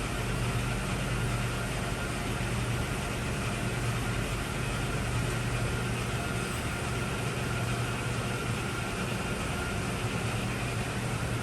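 Hardinge HLV-H toolroom lathe running in threading mode, its spindle turning and its lead screw driving the carriage through the engaged half nut: a steady mechanical hum with an even whir above it.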